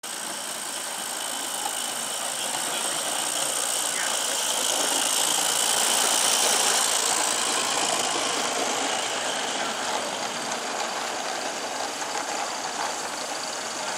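Live-steam garden-railway locomotive running by with a steady hiss of steam, growing louder toward the middle as it passes close and then easing a little.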